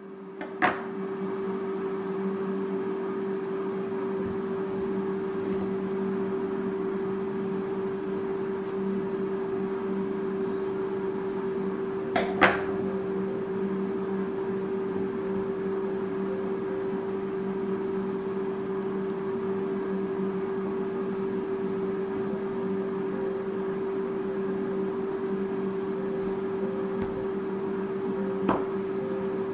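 Steady hum of an air fryer running, with three short knocks of a knife and avocado on a wooden cutting board: one just after the start, one about 12 seconds in and one near the end.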